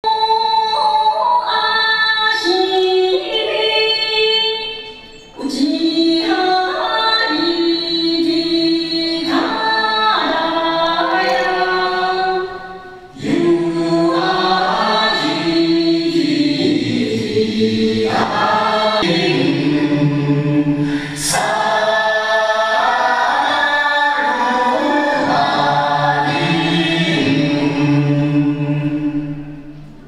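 Music: a song sung by a group of voices, in phrases broken by short pauses about five and thirteen seconds in.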